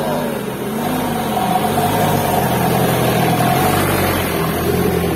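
Isuzu Elf dump truck's diesel engine running under load as the truck crawls close past over a rutted, muddy track, the engine note wavering slightly. A steady higher whine sits over the engine from about a second in until near four seconds.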